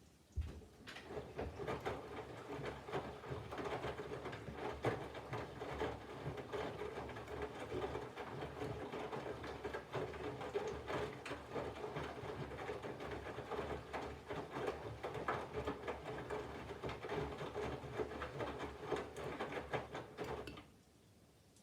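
Candy GVF4 front-loading washing machine drum turning for about twenty seconds during the water-heating phase of a 40° wash: laundry and water tumble and splash over the motor's hum, with many small knocks. It starts with a thump and cuts off sharply near the end.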